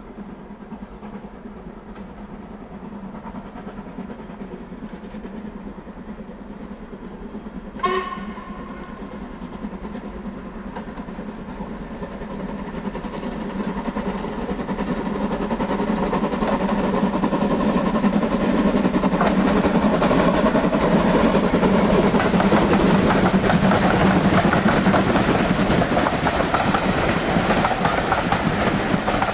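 Steam train drawing closer, its running noise growing steadily louder until it is loud and steady for the last ten seconds, with one short whistle toot about eight seconds in.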